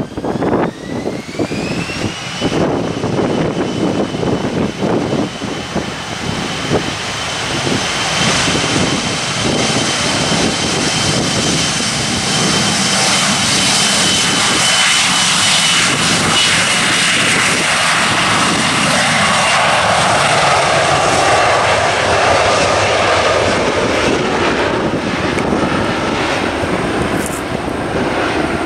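Embraer E175's twin GE CF34 turbofans spooling up for a takeoff run: a whine rises in pitch over the first couple of seconds and then holds steady over a growing jet roar as the airliner accelerates down the runway. Near the end the roar slides lower in pitch.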